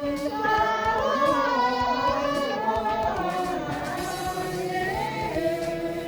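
Several voices singing a melody together, steady and fairly loud.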